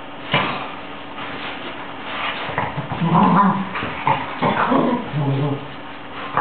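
Two dogs play-fighting, growling and whimpering in a cluster of irregular sounds over the middle few seconds, after a sharp knock about a third of a second in.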